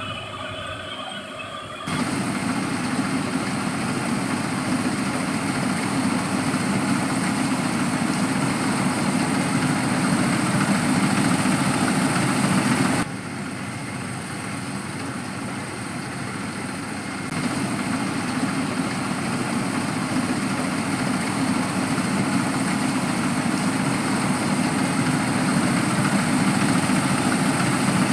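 Rice harvesting machine's engine running steadily. The sound jumps louder about two seconds in, drops abruptly about 13 seconds in and comes back about four seconds later.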